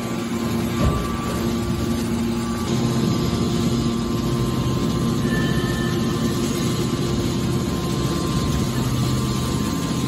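Hydraulic scrap metal baler running: its hydraulic power unit hums steadily while the hinged lid is raised, with a single knock just under a second in.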